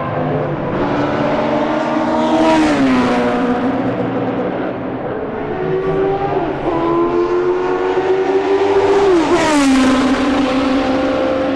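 Historic Formula One racing cars passing at speed, two in turn. Each engine note rises as the car accelerates, then drops sharply as it goes by, about two and a half seconds in and again about nine and a half seconds in.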